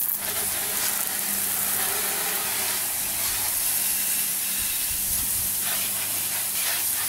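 Garden-hose water spraying from the row of jets on a PVC underbody car-washer wand against the underside of an SUV and the wet pavement: a steady hiss.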